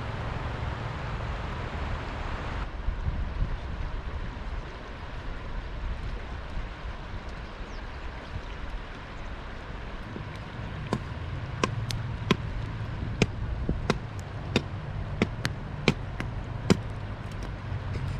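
A low steady rumble, with a run of about ten sharp, irregular snaps in the second half.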